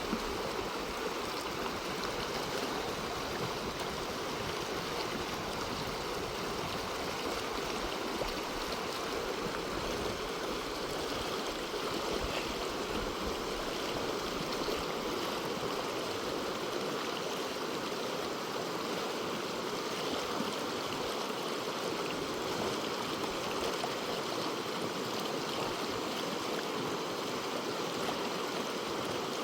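Fast-flowing river water rushing steadily, a constant even wash of sound.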